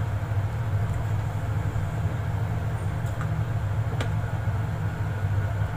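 A steady low hum from the kitchen, with two light clicks of a ladle against the pot as the mushrooms are stirred, about three and four seconds in.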